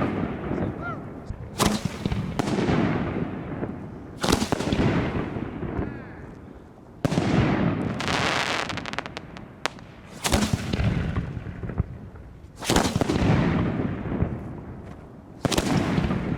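1.3G display fireworks shells bursting overhead, six loud booms about two to three seconds apart, each trailing off in a long rumbling echo. A spell of rapid crackling comes about halfway through.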